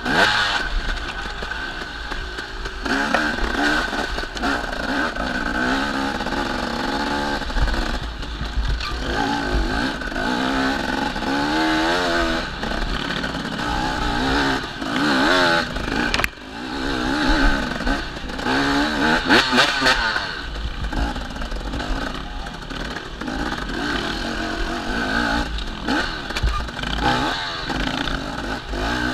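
Dirt bike engine heard from on the bike, revving up and down with constant throttle changes, the throttle shut briefly about halfway through, with occasional knocks from the bike over rough ground.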